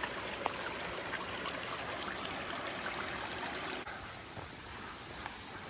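Mountain stream running steadily, turning quieter and duller about four seconds in.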